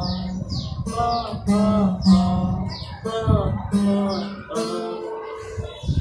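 Acoustic guitar strummed in chords, a strike roughly every half second to second, with the chords changing as it goes. Short high falling squeaks come with many of the strums.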